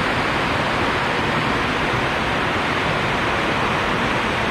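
Small creek waterfall rushing steadily as the water pours over bedrock.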